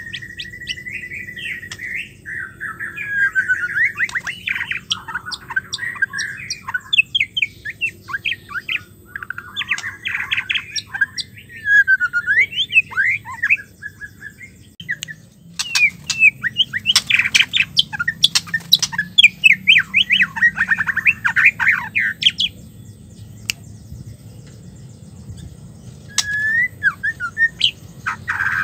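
White-rumped shama singing in bursts of rapid chattering, trilled and whistled phrases with short pauses between them, and a longer lull about three-quarters of the way through.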